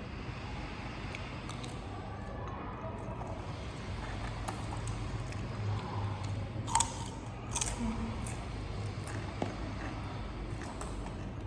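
A person eating: chewing and biting with small wet sounds, and a few sharp clicks about seven seconds in, over a steady low hum.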